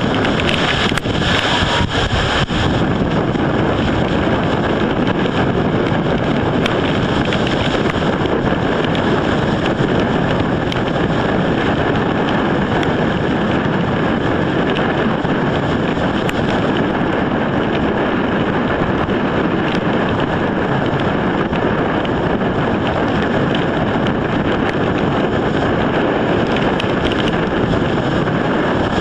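Loud storm wind blasting steadily across the microphone, a little harder in the first couple of seconds, over choppy waves on the lake.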